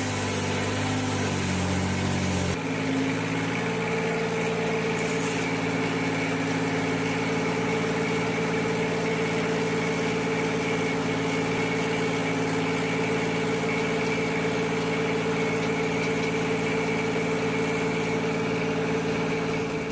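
An engine running: its pitch shifts unevenly at first, then from about two and a half seconds in it holds a steady, even note.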